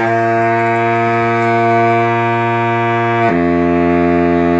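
Baritone saxophone holding a long, loud, low note, then dropping to a lower note about three seconds in and holding it.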